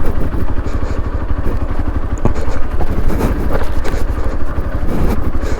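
Motorcycle engine running under load on a rough off-road track, with a rapid, even beat and a few knocks from the jolting ride.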